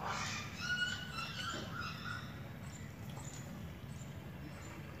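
Small birds chirping: a quick run of short, high chirps in the first two seconds, then a few fainter ones, over a steady low hum.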